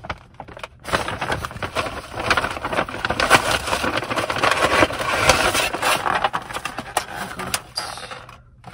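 Kraft paper shopping bag rustling and crinkling as it is handled and opened, starting about a second in, with a clear plastic clamshell container crackling as it is lifted out near the end.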